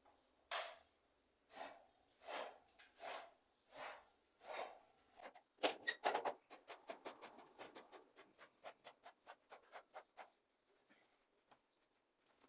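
Rubbing strokes on a surface while cleaning: a few slow swishing strokes, then a quick back-and-forth scrubbing of about four or five strokes a second that stops near the end.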